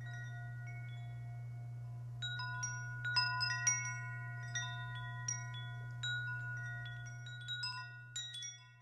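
Wind chimes ringing in irregular clusters of clear, high tones that ring on and overlap, growing busier about two seconds in, over a steady low hum. The sound fades out at the very end.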